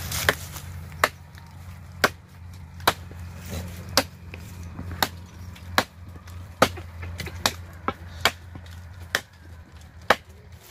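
A short hand-held chopping blade hacking into a tree's wood: about a dozen sharp, separate strokes, roughly one a second, some coming a little faster near the end.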